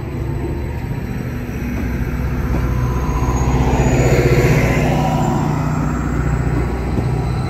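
Greater Anglia Class 755 bi-mode multiple unit pulling out under diesel power, its engines running steadily over wheel and rail noise. It grows louder to a peak about four seconds in as the train passes, then eases off.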